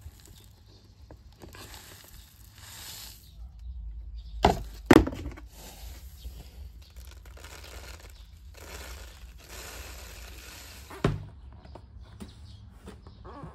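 A plastic scoop digging into bags of loose granular potting grit: stretches of plastic-bag rustling and gritty scraping and rattling. Two sharp knocks come about a third of the way in, and one more near the end.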